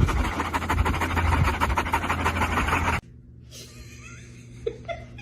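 Dog panting rapidly and loudly close to the microphone, cut off suddenly about three seconds in. A quieter stretch with a low steady hum follows.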